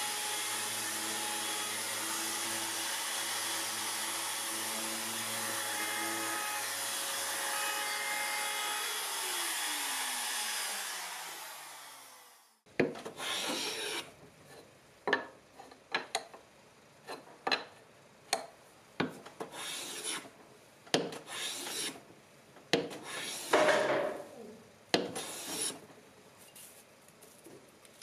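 A compact trim router running steadily, then switched off about ten seconds in and winding down with a falling whine. It is followed by a hand plane taking shavings off a walnut stool leg, about a dozen short, sharp strokes with pauses between them.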